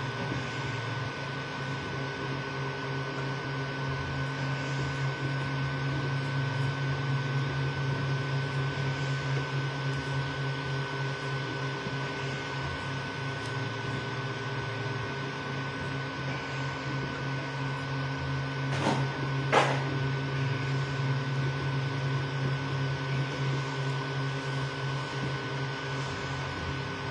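Creality Ender 3 V2 3D printer printing: the stepper motors hum and buzz, changing as the bed and print head move, over a steady high fan whine and hiss. Two sharp clicks, under a second apart, about two-thirds of the way through.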